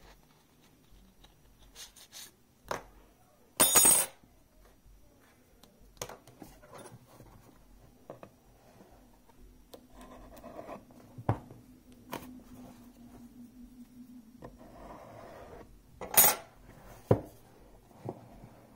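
Hands handling a stainless-steel credit-card multi-tool and a cardboard phone box: a run of sharp clicks, clinks and knocks, the loudest about four seconds in and again near the end, with quieter rubbing and scraping between.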